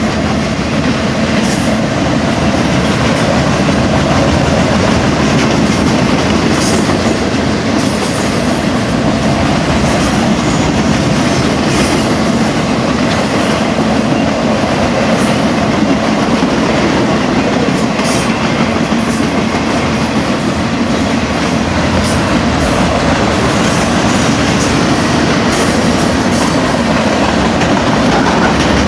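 Freight cars of a long Union Pacific freight train rolling steadily past at track side: a continuous loud rumble and clatter of wheels on rail, with occasional short sharp clicks.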